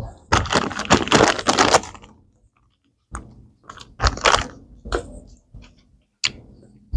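Close-up chewing of Australian licorice: a burst of dense noise in the first two seconds, then scattered wet smacks and clicks.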